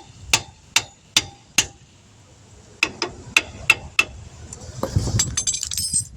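A hammer striking metal in two runs of four sharp, ringing taps, about two to three a second. Near the end there is a thud and a short metallic clatter of parts.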